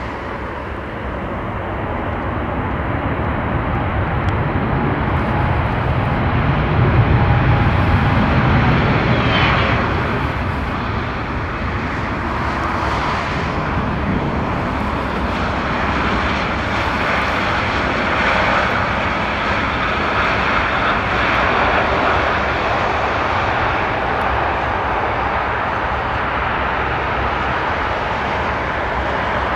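Airbus A320neo's CFM LEAP-1A turbofan engines running as the jet moves along the runway. The noise swells to a deep rumble, loudest about a quarter of the way in, then holds as a steady rush.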